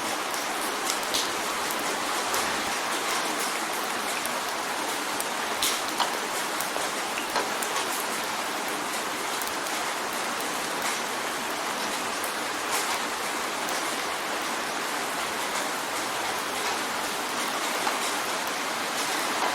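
Steady rain drumming on a windowpane, a dense even hiss with scattered sharp drop ticks.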